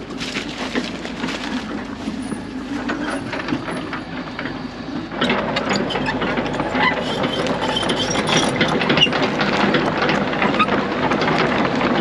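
Mini crawler excavator's diesel engine running, with metallic rattling and clanking from the machine. It jumps louder and closer about five seconds in.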